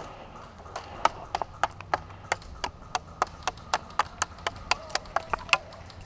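Airsoft gun firing a string of about twenty single shots, sharp cracks at an uneven pace of about four a second, starting about a second in and stopping near the end.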